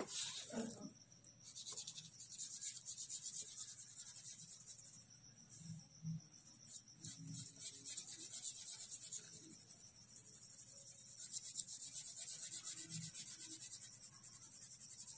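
Brown felt-tip sketch pen scribbling over paper: a fine, scratchy rubbing in rapid back-and-forth strokes, fading and swelling as the colouring goes on.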